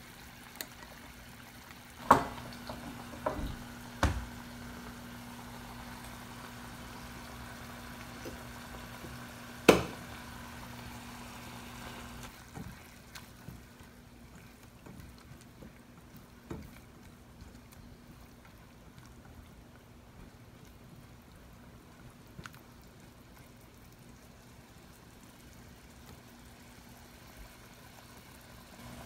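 Clams simmering in a small saucepan of butter, rice liquor and soy sauce: a faint steady bubbling that grows quieter about halfway through, over a low steady hum. A few sharp knocks of the pan or spatula come in the first ten seconds.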